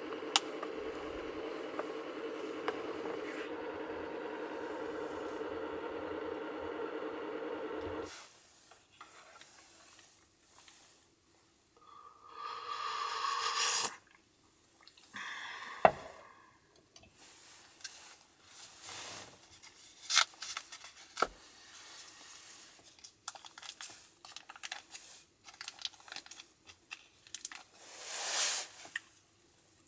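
Induction cooktop humming steadily while a metal spoon scrapes in a stainless steel cup, until the hum cuts off about eight seconds in. Then soup slurped from the metal cup, a sharp clink as the cup is set down, small clicks and rustles, and a short tearing rustle of soft food near the end.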